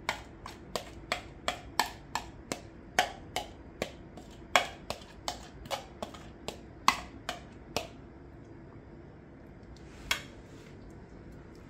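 A quick, even series of about twenty sharp taps, roughly three a second, stopping about eight seconds in, followed by one more tap near the end.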